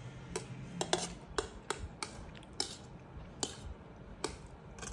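A metal spoon clinking against tableware while eating, about ten sharp irregular clinks.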